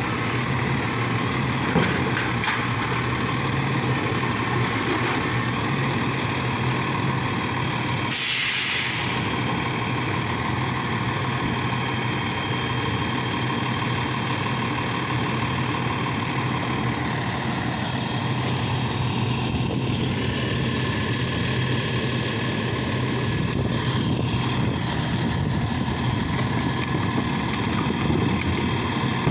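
Automated side-loader recycling truck's engine idling steadily, with one short burst of air hiss about eight seconds in.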